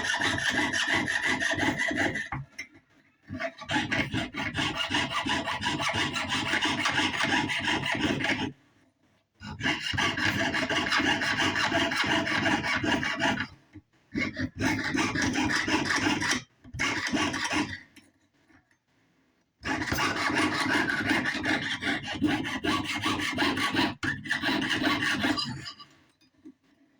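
Jeweler's saw cutting through sheet metal with quick back-and-forth strokes, in about six runs broken by short pauses.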